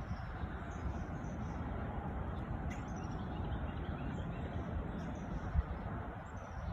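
Strong gusty wind rumbling and buffeting against the microphone, with small birds chirping faintly and repeatedly above it.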